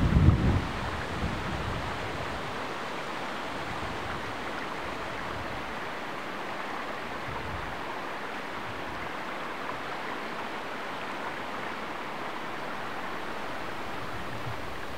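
A small rocky woodland stream running over stones, a steady rushing water sound. A short low rumble comes right at the start.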